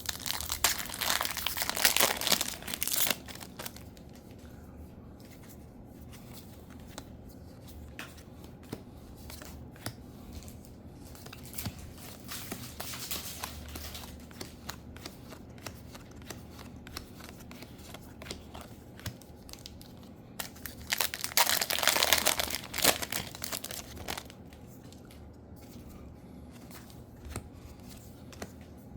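Booster pack wrappers being torn open and crinkled, twice: a loud crackly burst of about three seconds right at the start and another about three quarters through. In between are soft scattered clicks and rustles of cards being handled.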